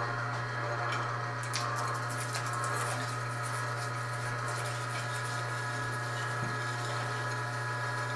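A small electric motor running with a steady low hum.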